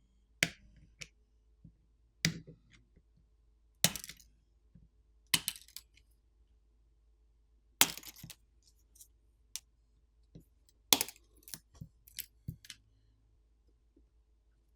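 Sharp plastic clicks and snaps of a smartphone's flex-cable connectors being pried off their board sockets with a pry tool, with lighter clicks of the tool against the phone. They come at irregular intervals, about a dozen in all, and the loudest are around four, eight and eleven seconds in.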